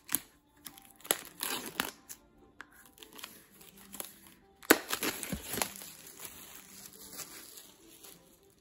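Clear plastic wrapping crinkling and tearing as it is peeled off a Blu-ray box, in irregular sharp crackles with the loudest rip a little under five seconds in. Soft music plays underneath.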